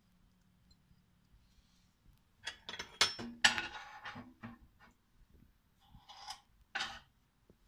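Kitchenware being handled: a cluster of sharp clinks and knocks of dishes and utensils about two and a half seconds in, loudest around three seconds, then two shorter clatters near the end.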